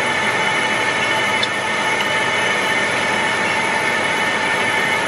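Tango Ice Blast slush machine running with a steady whirring hum while slush is dispensed into a cup.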